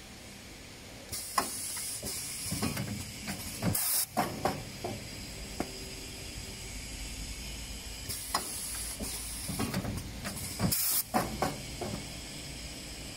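Serviette tissue bag packing machine cycling twice, about seven seconds apart: each cycle is a few seconds of air hissing with clicks and knocks from its air-driven cylinders, ending in a short, loud burst of air. A steady hiss runs underneath.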